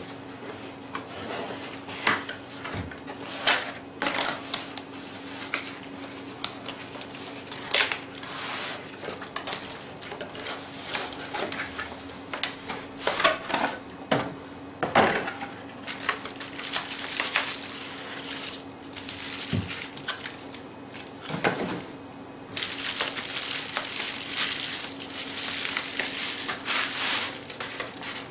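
Cardboard and plastic camera packaging being handled: scattered scrapes, taps and rustles as the camera body is worked out of its inner cardboard box and bubble wrap, then a plastic bag crinkling continuously through the last several seconds.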